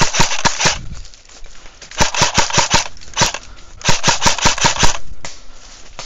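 Airsoft rifle firing three short full-auto bursts about two seconds apart, each a rapid string of sharp shots. A single shot falls between the second and third bursts.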